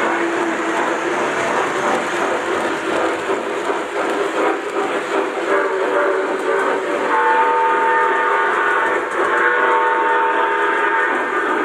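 Lionel O-gauge model trains rolling on three-rail track with a continuous wheel rattle and rumble. In the second half a model steam locomotive's whistle sounds for several seconds, played from an onboard sound system.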